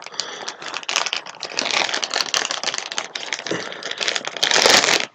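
Mail packaging crinkling and rustling as it is pulled and torn open by hand, with many small crackles throughout and loudest shortly before the end.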